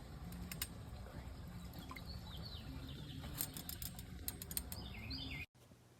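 Faint outdoor ambience by a garden pond, with a few short bird chirps and scattered light clicks over a low steady hum. It cuts off abruptly near the end.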